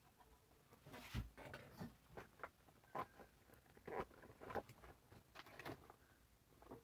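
Faint, short lip smacks and clicks, about a dozen over a few seconds, as freshly applied red liquid lipstick is pressed and worked between the lips.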